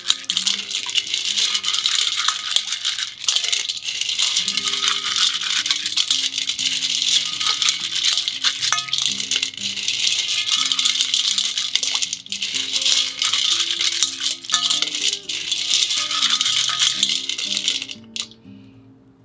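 Shijimi clam shells rubbed against each other by hand in a bowl of water, a dense, continuous clattering rattle with a few brief pauses, stopping suddenly near the end. Soft background music plays underneath.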